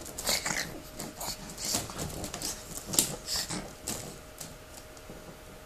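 Two pugs, a fawn adult and a black puppy, wrestling in a wicker basket: a string of short, irregular scuffling noises from the dogs and their bedding, dying down in the last second or so.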